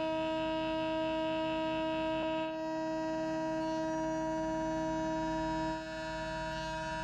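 CNC mill spindle driving a 35 mm indexable-insert face mill through a half-millimetre-deep facing cut in an aluminium plate: a steady high whine with a stack of overtones over a rough, rippling cutting noise. The sound shifts slightly about two and a half seconds in and again near six seconds.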